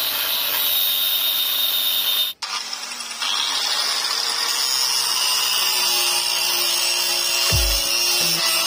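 Angle grinder with an abrasive cut-off disc cutting into the steel shell of an air-conditioning compressor: a steady high whine over a grinding hiss, with a brief break about two and a half seconds in before it carries on.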